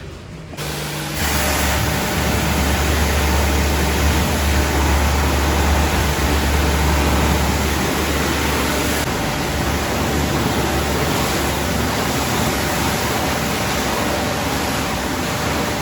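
Pressure washer spraying a motorcycle: a steady hiss of water spray over the washer's low motor hum, which weakens about nine seconds in.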